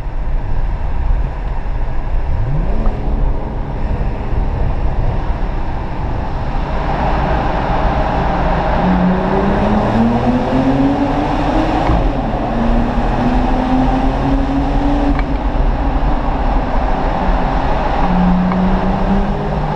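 BMW 135i's turbocharged straight-six through an aftermarket performance exhaust, heard from inside the cabin while accelerating: the engine note climbs in pitch several times as it revs up. It grows louder about seven seconds in, once the car is inside the tunnel.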